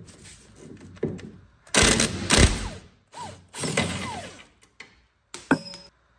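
Cordless impact wrench running on a 19 mm suspension nut in two loud runs, about two seconds in and again near four seconds, the motor's pitch falling as it spins down after each. A short sharp clank near the end.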